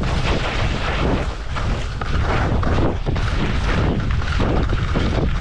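Wind buffeting the microphone: a loud, dense rush with a heavy low rumble and irregular gusting surges.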